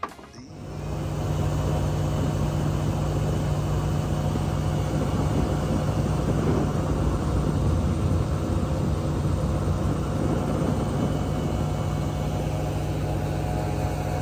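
Boat engine running steadily at speed, fading in over the first second or so and then holding an even drone.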